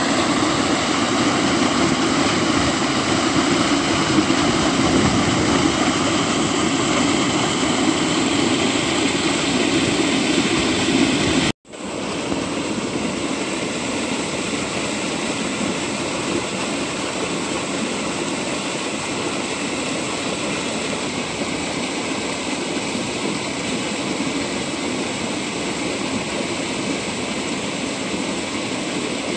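Water gushing from a concrete outlet into an irrigation channel, a steady rushing noise. It breaks off for an instant partway through, then carries on slightly quieter.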